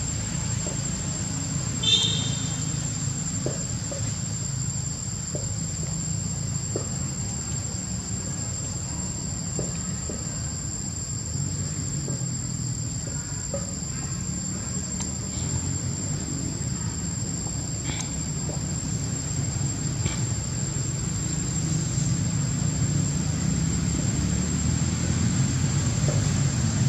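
Outdoor ambience: a steady low rumble under a constant high-pitched insect drone, with a short high chirp about two seconds in.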